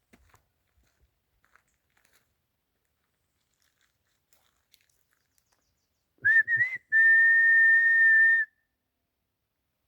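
A person whistling, as to call dogs. About six seconds in come two short notes that bend in pitch, then one long steady high note held for about a second and a half.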